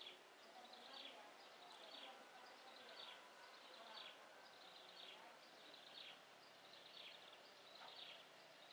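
Very faint, evenly repeated high chirps, about one a second, each falling slightly in pitch, over quiet outdoor background. No aircraft engine sound stands out.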